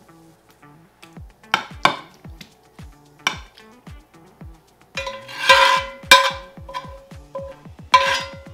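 Metal spatula scraping and clinking against a cast-iron skillet and a ceramic baking dish as a thick chicken-and-cheese mixture is scooped out. There is a string of sharp scrapes, the loudest cluster about five to six seconds in and another near the end.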